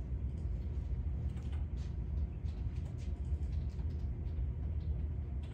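Steady low room rumble with a few faint, scattered clicks.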